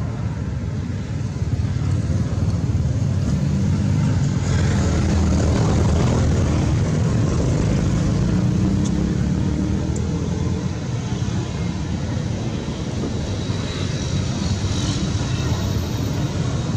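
A loud, steady low rumble with no clear pitch, swelling a few seconds in and easing after about ten seconds.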